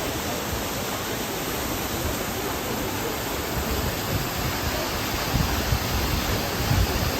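Waterfall rushing: a steady hiss of falling water spread evenly from low to high, with occasional low rumbles.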